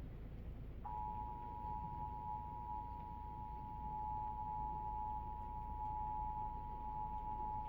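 Emergency Alert System attention signal: the two-tone 853 Hz and 960 Hz alarm, starting just under a second in and held steady over a low hum. It marks the start of an EAS alert, here a severe thunderstorm warning.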